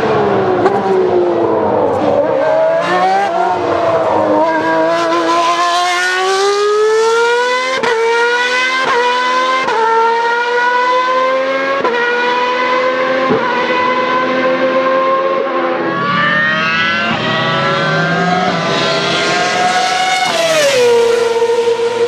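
Formula 1 car engine at high revs. The pitch falls through downshifts over the first few seconds, then climbs as the car accelerates, with quick upshifts heard as sudden drops in pitch, and it runs steady before one more drop near the end.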